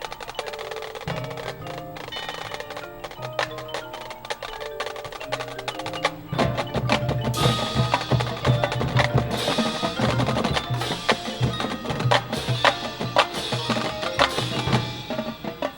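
Marching band percussion playing: mallet instruments run through a pattern of stepping notes, and about six seconds in heavier drums come in and the music gets louder, with sharp ringing crashes from about seven seconds on.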